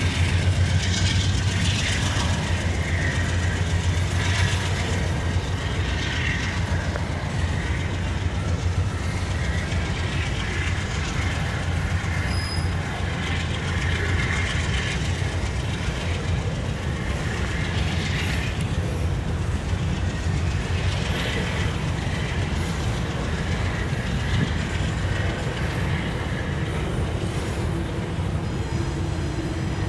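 Norfolk Southern covered hopper cars rolling past: a steady low rumble of steel wheels on rail, with clickety-clack and a higher wheel squeal that comes and goes every few seconds.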